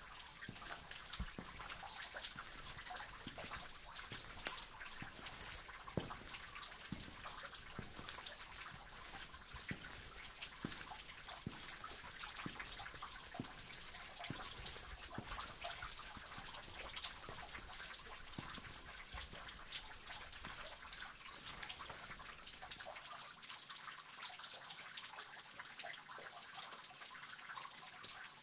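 Water dripping in a cave: many separate drops, some deeper and some sharper, falling irregularly over a steady trickle of running water.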